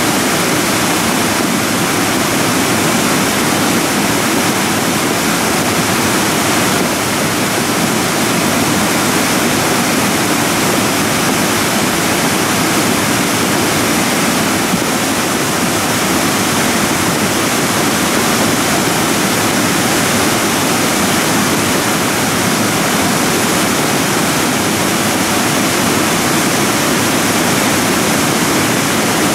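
Debris flow of mud and rock running down a gully in moraine rubble: a steady, loud rushing noise that does not let up.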